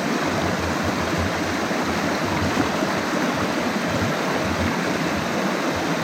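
Steady rush of a river flowing over rocks, an even hiss-like roar without a break.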